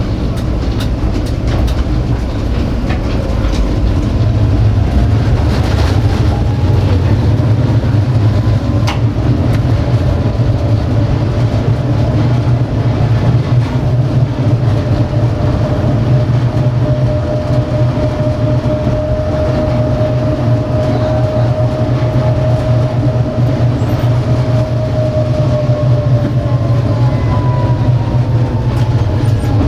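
Tatra T4D tram running along street track, heard from the driver's cab: a steady low rumble of the running gear with a whine that slowly rises and then falls in pitch, and a few sharp clicks from the rails.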